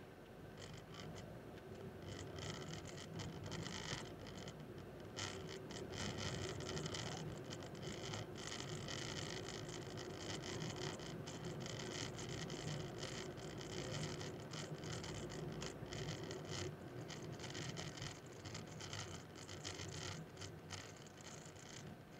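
Road and tyre noise of a moving car, heard from inside the cabin through a dashcam microphone, with a low rumble under a hiss. It grows louder a couple of seconds in as the car picks up speed, then eases near the end.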